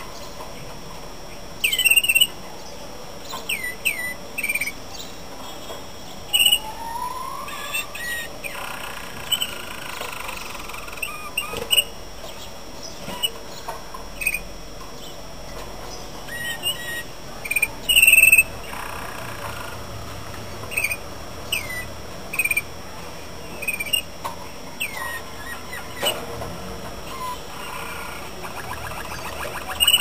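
Malinois (Waterslager) canaries calling and singing: short, sharp chirps at irregular intervals, a few much louder than the rest, with softer rolling song phrases in between.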